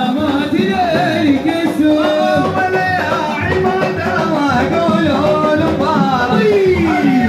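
Arabic wedding song playing loudly: a voice singing a wavering melody over music with a low beat.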